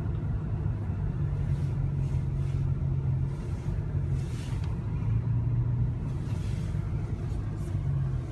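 Car engine running steadily at low revs, a low even hum.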